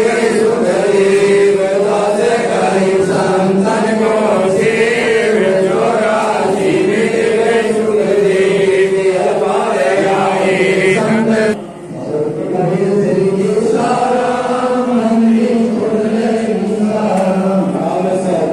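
Devotional chanting: voices singing a continuous, steady melodic line, with a short drop in level about twelve seconds in.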